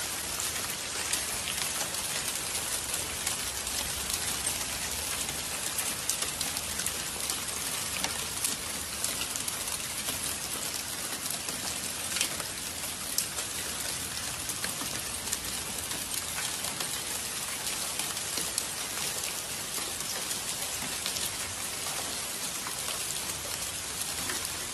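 A steady, dense patter of volcanic lapilli and ash falling like rain onto cars and pavement, made up of countless small ticks.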